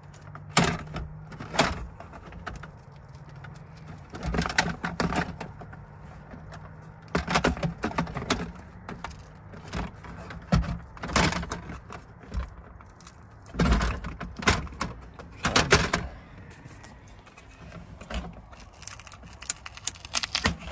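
Hands working on a plastic console tray and interior trim: irregular clicks, knocks and rattles in clusters as an LED stuck to the underside of the tray is worked off.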